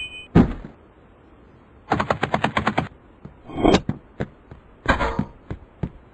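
Cartoon sound effects: a sharp knock, then a rapid rattle of about nine clicks in a second, followed by scattered knocks and a short swooping sound.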